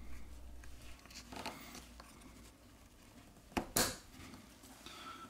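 Faint handling sounds as a plastic suction cup is set and pressed onto a phone's back cover, with two quick sharp clicks close together about three and a half seconds in.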